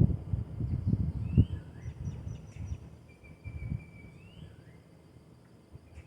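Wild birds calling: several short upward-sliding whistled notes and one longer held whistle in the middle. Low rumbling bumps, like wind on the microphone, fill the first two seconds.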